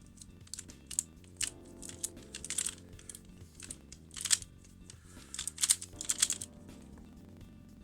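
QiYi MS magnetic Pyraminx being turned fast in a speedsolve: irregular bursts of rapid plastic clicking and clacking, loudest about four seconds in and again for about a second halfway through.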